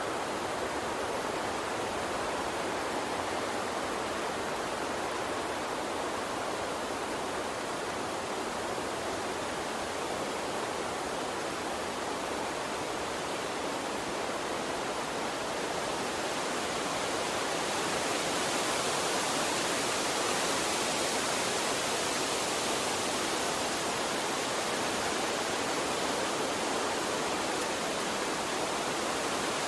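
A gentle water stream running steadily, a soft continuous rushing. About halfway through the hiss grows a little brighter and louder.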